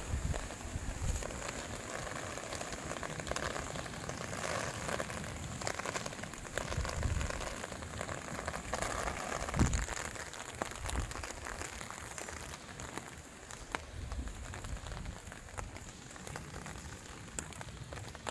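Outdoor patter of light rain, a steady noisy hiss full of fine ticks, with a faint steady high-pitched hiss above it. Irregular low rumbles hit the microphone, the loudest about ten seconds in.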